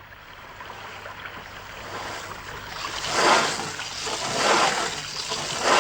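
Cartoon sound effect of a large drill boring through a wall. It builds up, then grinds in strong, even strokes about once a second from around halfway through, loud enough to be called a din.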